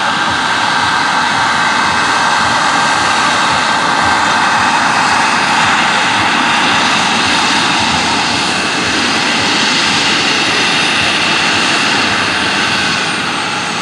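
Scale RC model helicopter (Eurocopter EC 135 replica) flying under turbine power: a steady high turbine whine over the rush of the rotors. It eases off slightly near the end.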